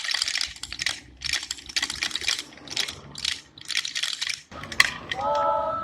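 Wooden Easter rattles (Klappern) being worked together, a dense clattering in pulses about twice a second, sounded in place of the church bells for the midday call. The rattling stops abruptly about four and a half seconds in.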